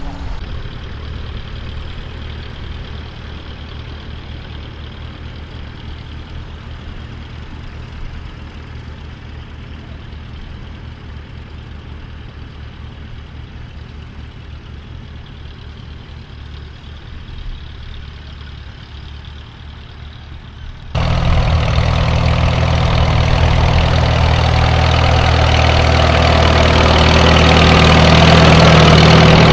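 Engine of vintage farm equipment running at steady low revs. About two-thirds of the way through, a much louder engine cuts in abruptly and grows steadily louder.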